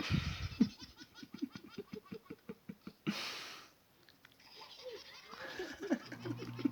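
A young child laughing hard in quick bursts, broken about three seconds in by a short sneeze, after which softer laughing starts up again.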